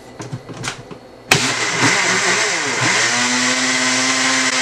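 A few light clicks as the blender jar is handled, then a countertop blender switches on abruptly about a second in and runs, blending the fruit juice in its jar. Its pitch dips briefly as the contents churn, then holds steady.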